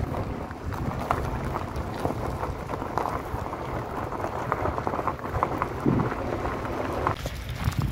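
Footsteps crunching on a sand and gravel track, with irregular crackles over a low wind rumble on the microphone.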